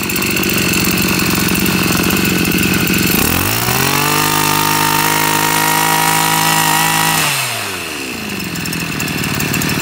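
Tanaka 23cc two-stroke brush cutter engine idling, revved up about three seconds in and held at high revs for about three seconds, then dropping back to idle.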